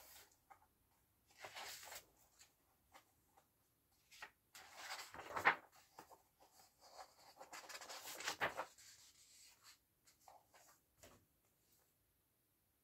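Pages of a paperback colouring book being turned by hand: several rustling paper swishes, the loudest about five and a half seconds in, then a few light taps of the book being handled near the end.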